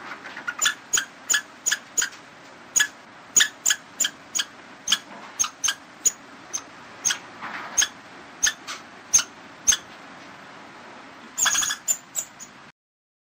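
Short, sharp, high-pitched chirping calls from a small animal, repeated irregularly two or three times a second, then a quick flurry of them near the end.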